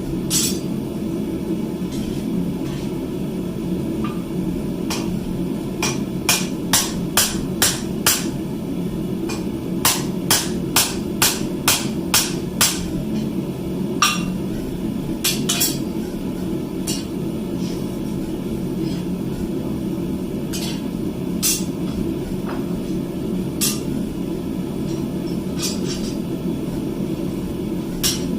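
Hand hammer striking steel on an anvil in blacksmith forging: two quick runs of blows, about five then about six, followed by scattered single strikes, over a steady low background rumble.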